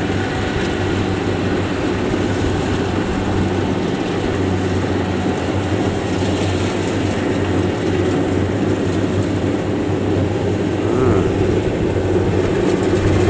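Kubota DC-70 combine harvester's diesel engine and threshing machinery running steadily while it cuts rice, a constant machine hum.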